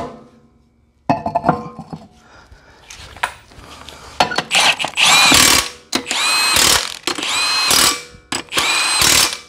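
Cordless impact wrench running the lug nuts onto a wheel stud: after a few metal clicks as the wheel and nuts go on, about five short bursts follow, each whining up in pitch and then hammering.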